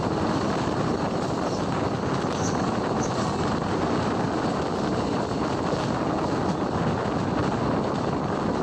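Passenger train running at speed, a steady rumble of wheels on the track, with wind on the microphone held out of the coach window.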